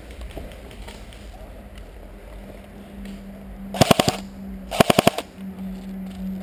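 Airsoft rifle firing two short full-auto bursts about a second apart, each a rapid string of sharp cracks lasting about half a second, over a faint steady hum.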